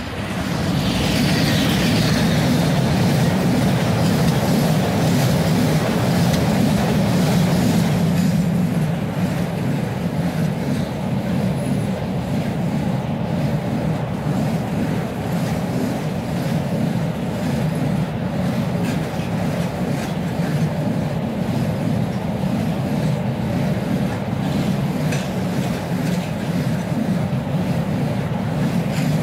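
ET22 electric freight locomotive passing close by in the first seconds, followed by a long train of loaded car-carrier wagons rolling past with a steady low rumble and wheels clicking over the rail joints.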